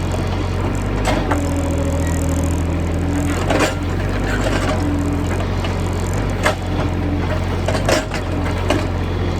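Excavator engine running steadily under load with a whine that comes and goes, and several sharp knocks and cracks as the bucket breaks into a hard-packed termite mound.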